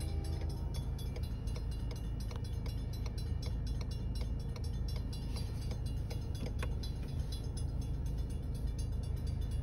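Steady low rumble of a car idling, heard from inside the cabin, with the railroad crossing's warning bell faintly ringing in rapid, even strikes.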